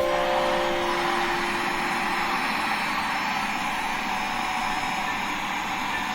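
Steady whirring of a household appliance's electric motor running continuously at an even level.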